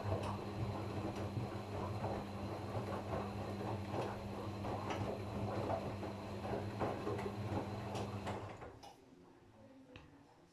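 Gorenje washing machine running a wash: a steady motor hum under the churn and clatter of laundry and water tumbling in the drum. About eight and a half seconds in the drum stops and it goes quiet, with a few faint clicks.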